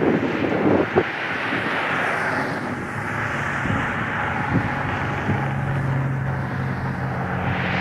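Boeing 777 on final approach, its jet engines a steady distant rushing noise, with a low steady hum joining about five seconds in. A brief tap about a second in.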